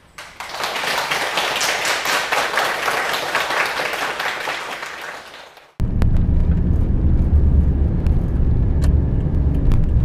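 Audience applauding, dying away over a few seconds. After an abrupt cut about six seconds in comes a steady low engine and road rumble inside a moving Mazda Scrum kei van's cabin.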